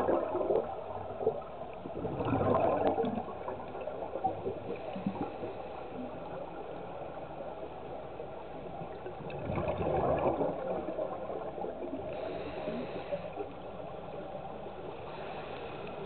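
Scuba diver breathing through a regulator underwater: three gurgling rushes of exhaled bubbles, at the start, about two seconds in and about ten seconds in, with two fainter hisses near the end.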